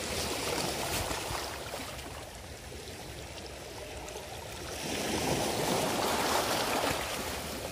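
Small sea waves washing and splashing against shoreline rocks, swelling louder twice, near the start and again about five seconds in.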